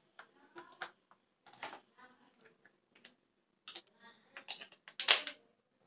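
Irregular plastic clicks and knocks as a toy robot's plastic remote control is handled and AA batteries are fitted into its battery compartment; the loudest knock comes about five seconds in.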